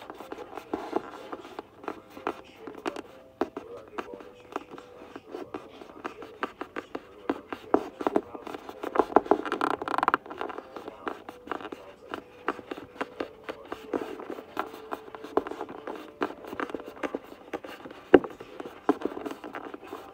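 Paper being handled close to the microphone: irregular rustling and scraping with many light clicks, and one sharper click near the end.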